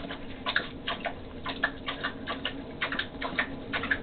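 Rapid, irregular light ticks and taps of wind-blown snow striking a window in gale-force winds, over a low steady hum.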